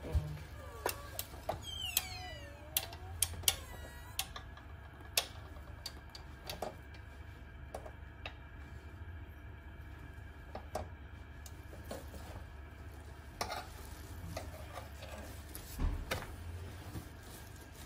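Small kitchen handling sounds, scattered clicks and taps with squelching squeaks from a plastic squeeze bottle drizzling sauce, over a steady low hum. A low bump comes near the end as the lid of an electric flatbread maker is lifted.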